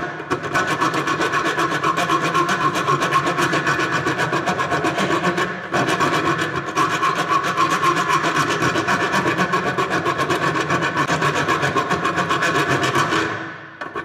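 A thread file rasping back and forth in quick strokes across a bolt's damaged external thread, filing out the damaged sections to restore the thread. The strokes pause briefly about halfway and die away near the end.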